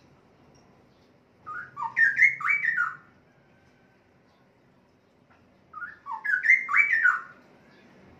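Straw-headed bulbul (cucak rowo) singing two short, loud phrases of sliding liquid notes, a few seconds apart. It is an adult male only just coming back into song and not yet in full voice, which the seller puts down to losing its mate.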